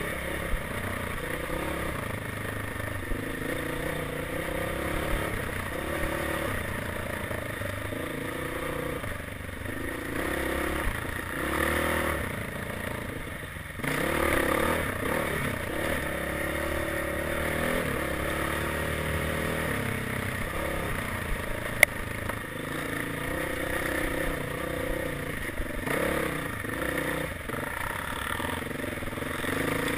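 Dirt bike engine revving up and down as it is ridden over rough trail, the revs rising and falling with each change of throttle. There is one sharp knock a little past the middle.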